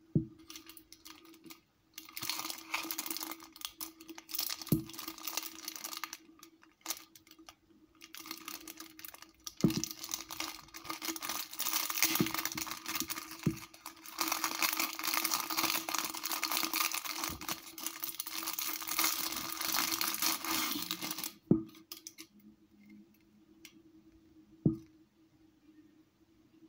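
Clear plastic packaging crinkling and rustling as hands open a packaged sabiki rig and slide its foam winding cards out, with a few sharp knocks along the way. The rustling stops about twenty seconds in, leaving a couple of faint clicks.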